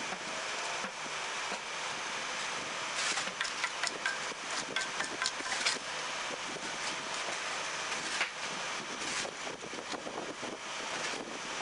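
Steady machinery noise with scraping and clicking as a flat wooden board is dragged over damp concrete mix in a paving-block press mould. The scraping is busiest from about three to six seconds in.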